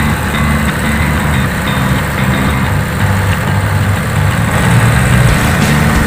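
Heavy diesel engine running steadily with a low rumble, growing a little louder toward the end.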